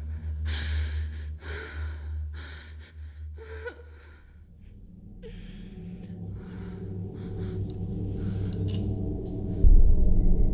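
A frightened young woman's heavy, rapid breathing and gasps, coming about once or twice a second and then dying away. A low, dark drone swells under it, and a deep low boom hits near the end.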